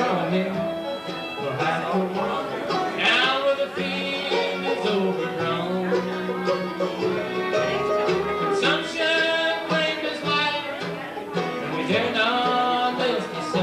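Bluegrass band playing the song live, with banjo and guitar prominent.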